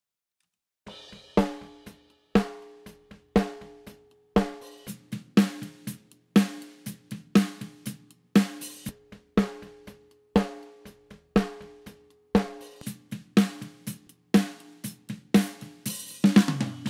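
Multitrack drum recording played back with its snare mics (top, bottom and parallel punch channels) EQ'd and mixed together: a groove with a heavy snare hit about once a second, each carrying a pitched ring, and lighter kick and hi-hat hits between. A quick run of hits and a cymbal crash that rings on close it.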